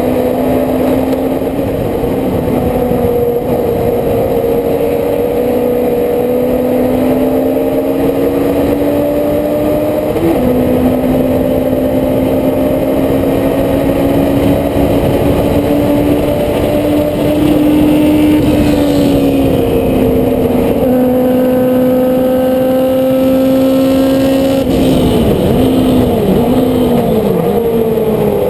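Race car engine heard onboard, running hard at high revs, its pitch slowly climbing on the straights with a couple of sudden steps. Near the end the pitch dips and swings in several quick arcs before settling lower, as in downshifting for a corner.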